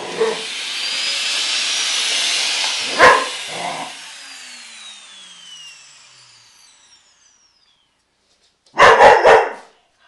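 Canister vacuum cleaner running, then its motor winding down with a falling whine. An Irish terrier barks sharply about three seconds in, and lets out a quick string of barks near the end.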